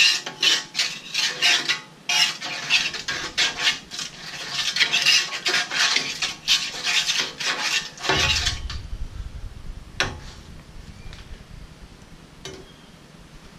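Metal spatula scraping back and forth across the steel top of a Blackstone griddle in quick repeated strokes, spreading oil. The scraping stops about eight seconds in, followed by a few light metal clinks.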